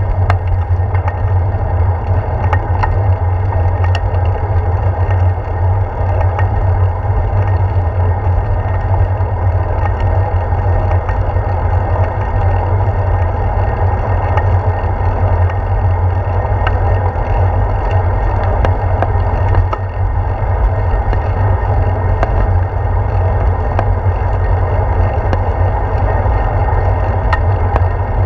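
Steady wind rush and road rumble picked up by a handlebar-mounted GoPro on a bicycle rolling along asphalt, with a deep, constant buffeting and a few small clicks and rattles from the bike.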